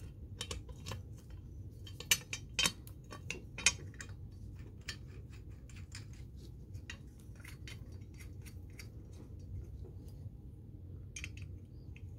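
Small clicks and taps of a threaded steel bolt being worked by hand through the holes of a pull-up bar's swing arm and side bracket, a bolt that does not go in easily. A few sharper clicks come between about two and four seconds in, then fainter, sparser clicks.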